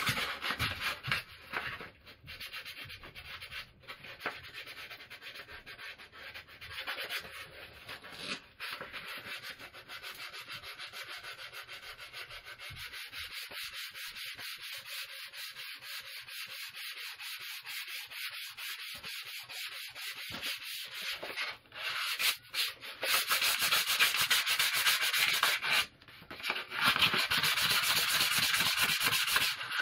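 A new wooden axe handle being hand-sanded with sandpaper: quick, continuous back-and-forth rubbing strokes. The rubbing is softer through the middle and gets louder for the last several seconds, with a couple of brief pauses.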